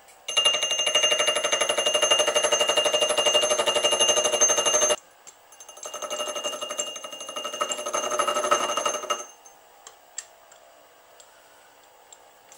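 Milling machine's disc gear cutter cutting a tooth space in a 49-tooth gear blank on a dividing head: a loud, fast rhythmic chatter of the cutter teeth with a high ringing from the metal, lasting about five seconds and stopping suddenly. A second, quieter spell of the same cutting follows for about three seconds, then only a few small clicks.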